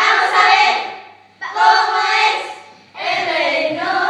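A group of children singing a song together in Spanish, in three short phrases with brief breaks between them.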